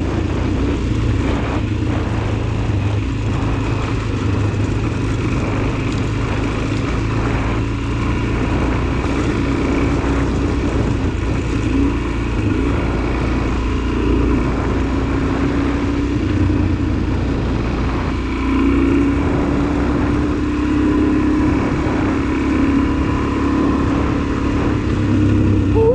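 Suzuki DR-Z400SM's single-cylinder four-stroke engine running while riding, its pitch shifting up and down, over wind rush and tyres on a gravel road.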